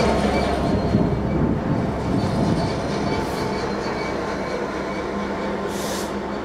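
Diesel freight locomotive's engine running as it passes along the track and draws away, its hum slowly fading. A brief hiss comes near the end.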